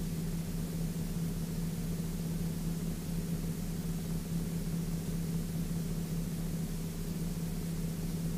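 Sling 2 light aircraft's Rotax 912 four-cylinder engine and propeller droning steadily in cruise, one constant low tone over a hiss of airflow, with no change in power.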